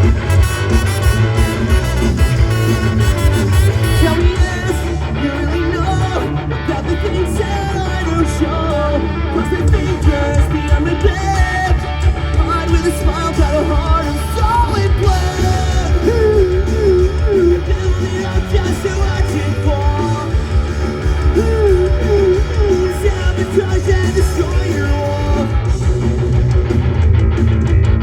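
Live rock band playing an instrumental stretch: electric guitars over bass and drums, with a wavering melody line in the middle.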